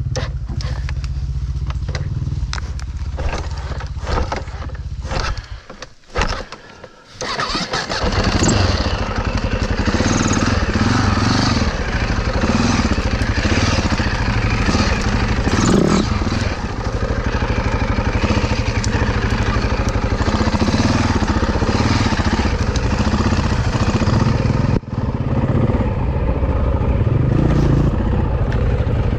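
Husaberg dirt bike engine idling, dying out about six seconds in and started again a second or so later, then run with uneven revs as it is ridden slowly through rough ground.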